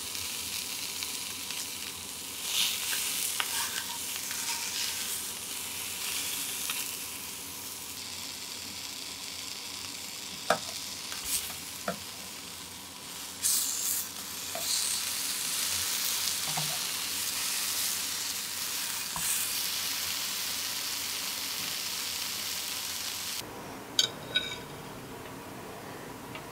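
Pieces of shark meat sizzling as they fry in a non-stick frying pan. About halfway through, a few sharp clicks of metal tongs against the pan come as the pieces are turned. The sizzle stops abruptly near the end.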